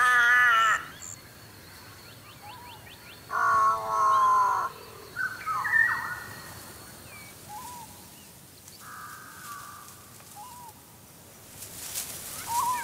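Crow calling: harsh caws with a wavering pitch, one at the start and a longer one about three and a half seconds in, with faint small bird chirps in between. Near the end, a rustle of dry brush.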